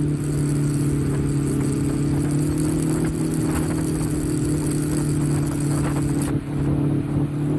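Motorcycle engine running at a steady cruise, its drone holding one pitch, with a low wind rumble on the microphone.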